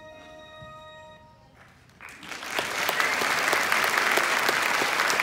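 The last held notes of a song fade out, then an audience breaks into applause about two seconds in, loud and continuing to the end.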